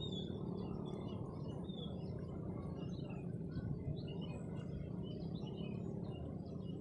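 Many small birds chirping in short, scattered calls over steady low background noise.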